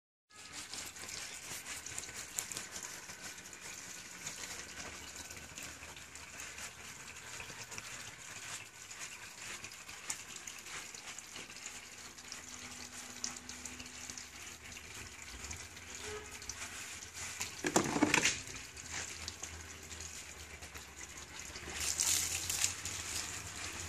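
Water trickling and splashing on a wet dog's coat and the concrete under it, a steady hiss with small drips and splashes. A brief louder splash comes partway through, and water is poured over the dog's back near the end, louder and brighter.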